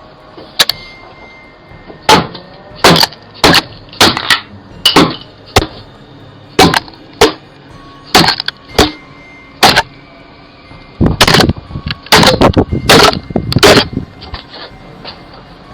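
A string of about twenty loud, sharp bangs at irregular intervals, coming faster and closer together in a burst over the last few seconds.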